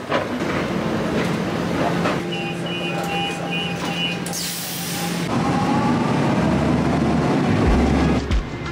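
Lisbon Metro train at a station: a rapid run of short beeps, the door-closing signal, a brief hiss as the doors shut, then the train pulling away with louder rumbling running noise.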